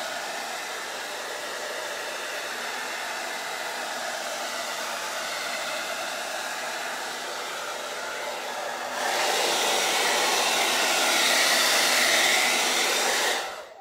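Handheld hair dryer blowing steadily to dry chalk paste on a stencil. It gets louder about nine seconds in and is switched off just before the end.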